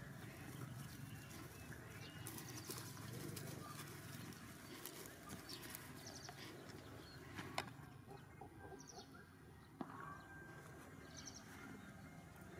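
Faint outdoor ambience: a low rumble and rustling, with a few short high chirps and two sharp clicks, one about two-thirds of the way in and one a couple of seconds later.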